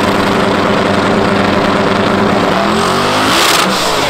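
BMW sedan's engine held at steady revs, then revved up. There is a brief rush of noise a little over three seconds in, and then the revs fall away.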